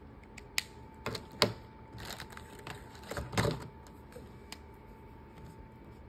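Felt-tip markers being handled on a tabletop: a string of sharp clicks and taps, the loudest about one and a half seconds in, and a heavier knock about three and a half seconds in.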